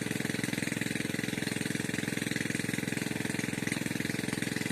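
A small engine running steadily, a rapid even chugging.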